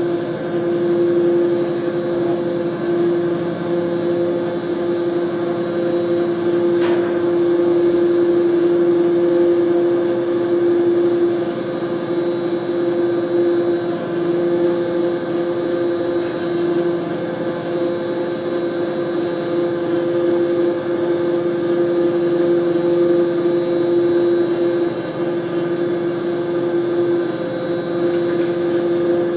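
Lift drive machinery of a vertical-lift bridge running steadily as the span is raised, a constant hum with a strong steady tone. One sharp click about seven seconds in.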